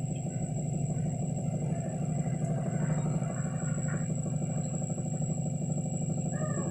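Steady low hum of a hot air rework station's blower fan running, with a thin high electrical whine over it.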